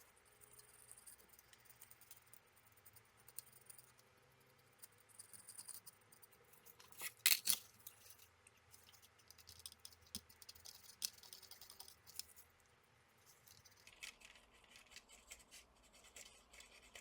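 Faint scratching and small clicks of a tool working over the solder pads of a laptop motherboard as they are cleaned, with one louder cluster of scrapes about seven seconds in.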